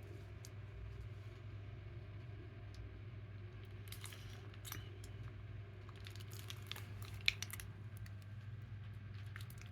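Homemade slime being kneaded and squeezed by hand, giving small scattered sticky clicks and squishes, busiest in the middle with one sharp snap a little after seven seconds, over a steady low hum.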